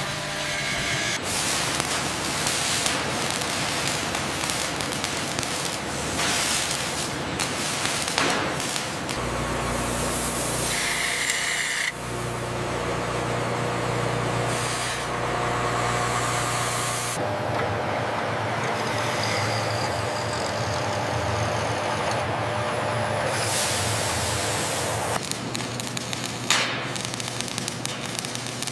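A run of machine-shop sounds in several spliced segments: metal machining with a hissing coolant spray, then, in the last few seconds, the crackle of arc welding.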